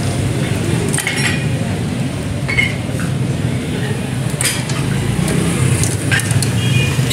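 Metal skewers and tongs clinking against the grates and edge of a charcoal grill: several sharp clinks, each with a short ring, over a steady low rumble of a busy street.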